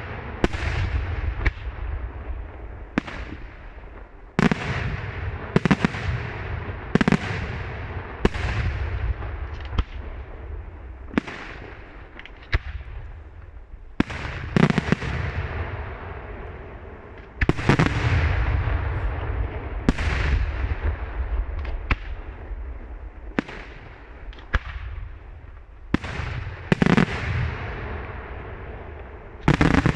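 Daytime aerial firework shells bursting in a steady sequence, a sharp bang every second or so, each followed by a long rolling echo. Some bursts come in quick pairs, and the loudest fall a little past halfway and near the end.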